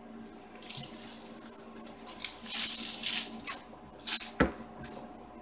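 Plastic film on a diamond painting canvas rustling and crinkling in uneven swells as hands slide over it and turn it, with one sharp tap about four and a half seconds in.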